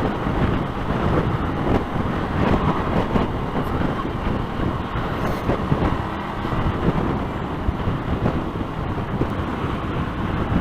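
Strong gusty wind rushing and buffeting over the microphone of a moving motorcycle, with road and traffic noise beneath.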